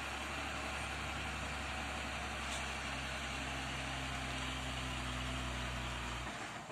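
Heavy truck's diesel engine idling steadily under a constant hiss, the engine sound stopping abruptly near the end.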